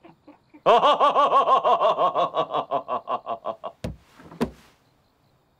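Hearty laughter, a rapid run of 'ha-ha' bursts slowing over about three seconds. Then two sharp knocks about half a second apart, as of a blow on a wooden table.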